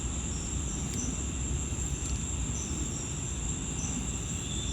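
Outdoor insect chorus of crickets chirring steadily at a high pitch, with shorter chirps breaking in every second or so over a low rumble.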